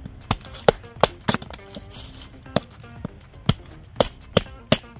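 A series of sharp, irregular knocks, about nine in five seconds, over background music.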